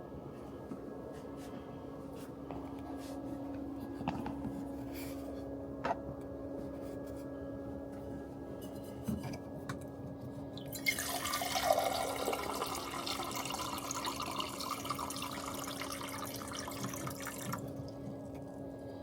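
Water running for about seven seconds, starting and stopping abruptly, over a steady low hum, with a few light clicks before it.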